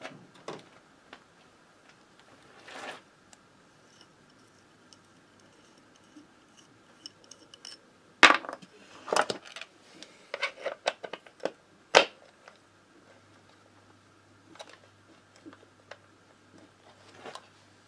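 Scattered metallic clicks and clinks of parts and tools being handled while refitting the kick-start lever on an AM6 moped engine. A burst of sharp taps comes in the middle, with one loud knock about twelve seconds in.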